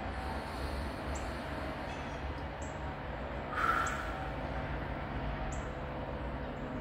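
Slow, quiet breathing in a 10-10 breathing exercise, in through the nose and out through pursed lips, over a steady background hiss. One short, louder sound comes a little past halfway.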